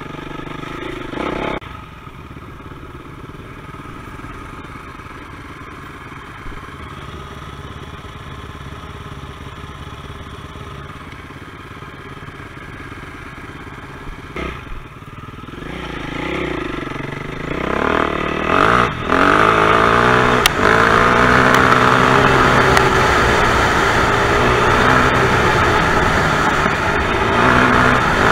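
Dirt bike engine idling for the first half, then revving up and running loud under acceleration for the second half, its pitch rising and falling with the throttle.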